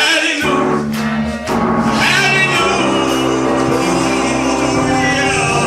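Gospel song: a singer holds a last "hallelujah" over the band, with sustained chords that carry on after the voice.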